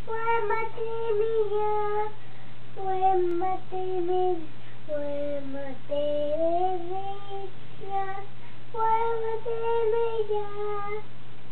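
A toddler girl singing a slow, simple tune in a high, small child's voice, in a few long phrases of held notes that slide up and down.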